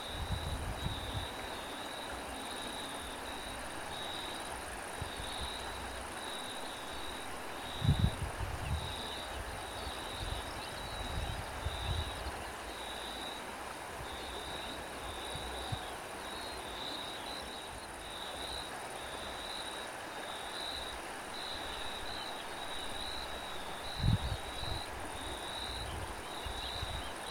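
Cricket chirping in an even, repeated rhythm of about one to two high chirps a second over a steady background hiss. A few short low gusts of wind buffet the microphone.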